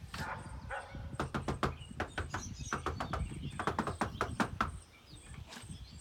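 A dog moving about on a leash and prong collar: a quick run of clicks and taps, from its claws and collar, starts about a second in and stops near the end.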